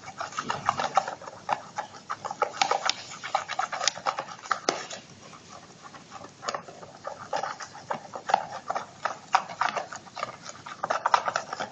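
Glue and dish-soap slime mixture, with salt water just added, being stirred in a container: quick irregular clicks of the stirrer against the container and wet squelches, several a second.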